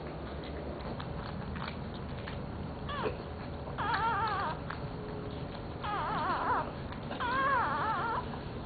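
Newborn puppy crying: a short squeal about three seconds in, then three longer wavering, high-pitched cries.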